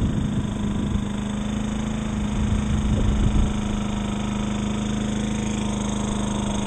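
Sailboat's auxiliary engine running steadily under way, a constant hum, with wind buffeting the microphone around three seconds in.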